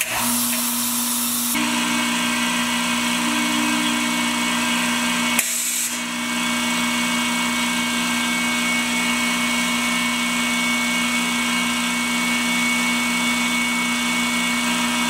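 California Air Tools 30020DCAD 2-hp oil-free air compressor switched on, starting at once and running with a steady hum and an even low pulsing while it fills its tank. About five seconds in there is a click and a short hiss of air.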